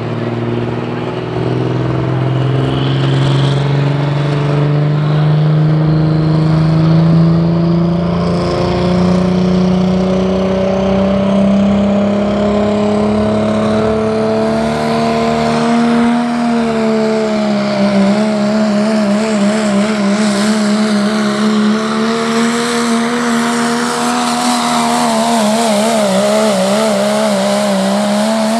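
Diesel pulling truck's engine under full load down the track. Its pitch climbs steadily for about sixteen seconds, then holds with a rapid up-and-down warble.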